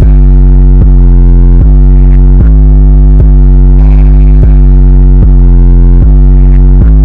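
Very loud, bass-heavy electronic music: a synthesizer bass line of short low notes changing about every 0.4 seconds.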